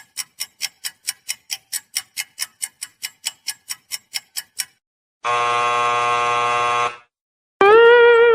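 Electronic sound effects in sequence. First a rapid run of short beeps, about five a second, that stops after about four and a half seconds. Then a flat buzzer that sounds for under two seconds. A new pitched tone starts near the end.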